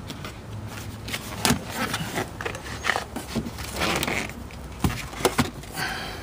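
Plastic sun visor in a van cab being handled and flipped by hand: a string of sharp clicks and knocks with a short scrape in the middle, over a low steady hum.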